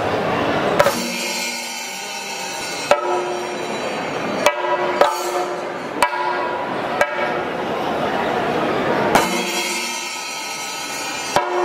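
Thayambaka percussion on Kerala chenda drums: sharp, spaced strokes roughly every one to two seconds, each ringing on, over a steady dense din of the ensemble.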